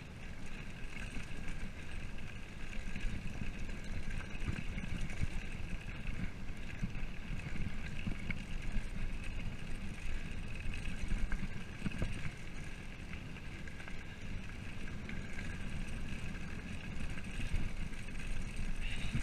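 Steady rumble and rattle of a mountain bike rolling fast down a rough gravel road, with wind buffeting the microphone.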